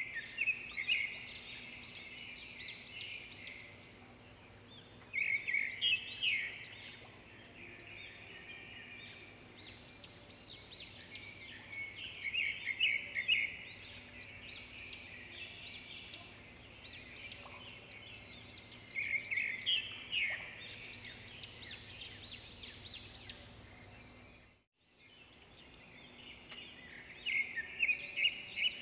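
Small birds chirping and singing in quick, busy phrases that come every few seconds over faint outdoor background noise. The sound cuts out briefly about three-quarters of the way through.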